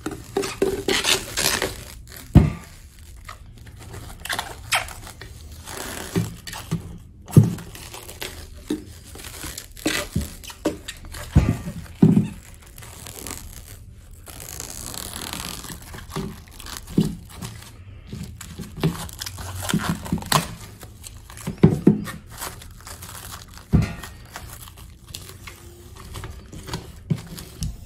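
Plastic cling film being pulled off its roll, stretched and pressed around the rim of a steel mixing bowl: irregular crinkling and crackling, with a few dull knocks.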